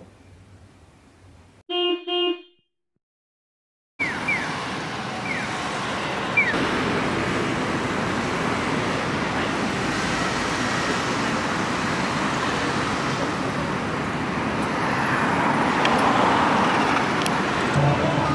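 A short pitched two-part tone, then a moment of dead silence, then steady city street traffic noise with cars going by, with a few short high chirps just after the street sound starts.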